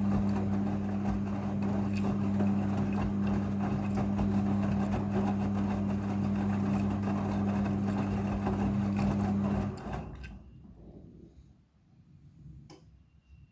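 Midea front-loading washing machine running during its rinse cycle: a steady hum with rushing water noise that cuts off about ten seconds in. After that only faint low sounds remain.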